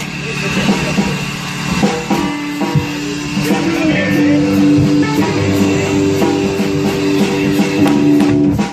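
Rock band playing live, led by electric guitar, on a badly distorted recording. About halfway through, the guitars settle into long held notes.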